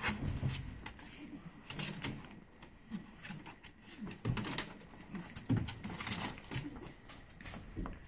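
Pug puppies scuffling in a plastic kiddie pool: scattered claw scratches and clicks on plastic and towels, with soft low grunts.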